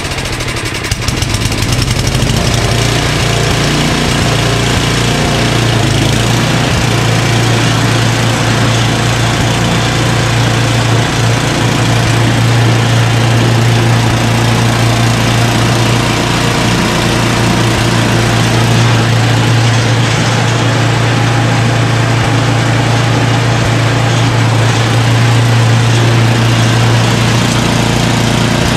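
A Craftsman 29-inch two-stage snowblower's 9 hp Tecumseh Snow King single-cylinder engine running steadily at an even level, without surging, now that its carburetor's clogged pilot jet has been cleared.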